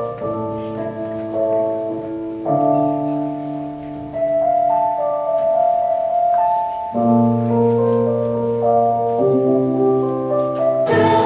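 Instrumental backing music: slow, held chords that change every two or three seconds. Just before the end, a brighter, fuller accompaniment comes in.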